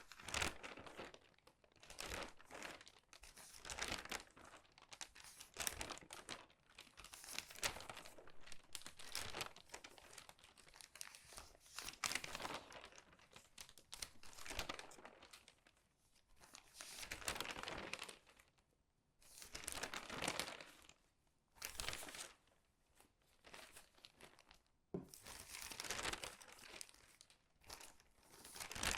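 Crinkly newspaper pages turned quickly one after another, each turn a separate crisp rustle and crinkle of the paper, with a couple of short pauses between turns.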